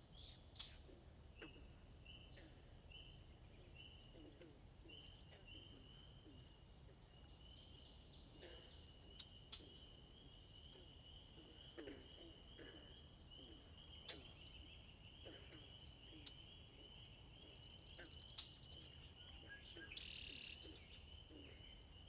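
Faint natural ambience of birds and insects: a steady high insect-like trilling, a short high chirp repeating every second or two, and scattered short low bird calls.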